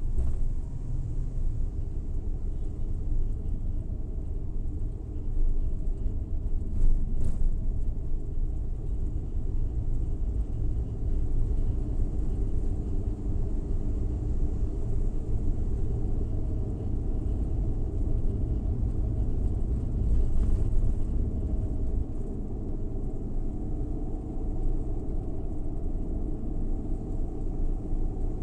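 Suzuki Every Wagon kei van driving along: a steady low road and engine rumble with the small three-cylinder engine's hum, and a couple of brief knocks.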